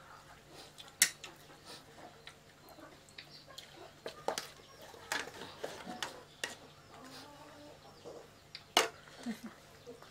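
Scattered sharp clinks of a metal serving spoon against a steel rice pot and plates as rice is served, the two loudest about a second in and near the end.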